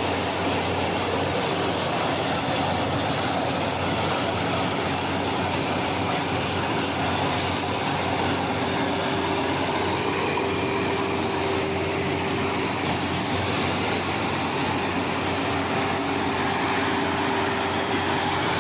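Kaira 102 hp combine harvester running steadily: engine and machinery noise at a constant level, with a steady hum throughout.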